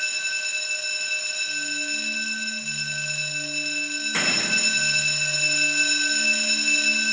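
A steady high ringing tone, the film soundtrack's rendering of tinnitus, held throughout over slow low sustained notes that change about once a second. A sudden rush of noise breaks in about four seconds in.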